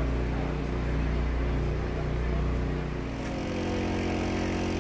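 A steady low engine hum, with its pitch and pattern shifting about three seconds in.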